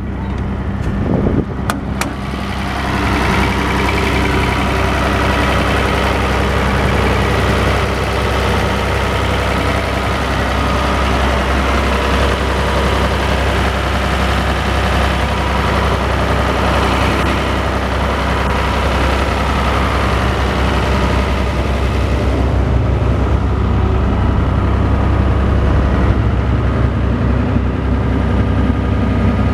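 Atlas Copco QAS 150 diesel generator set running steadily at constant speed, a deep even hum with engine clatter. A few sharp clicks about a second in, and the sound turns duller about three-quarters of the way through.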